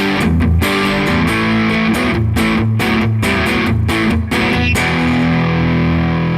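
Gibson electric guitar played through an amplifier, strumming chords with brief gaps between them.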